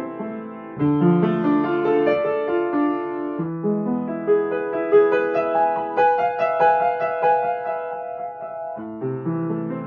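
Solo piano music: a gentle melody of held notes over broken chords, with new phrases starting about one second in, again around three and a half seconds, and near the end.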